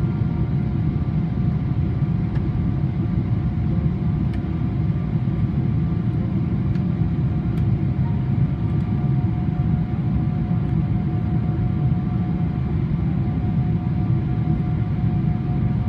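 Steady cabin rumble of a Boeing 777-300ER airliner, with a few faint steady whining tones above it and no change in level.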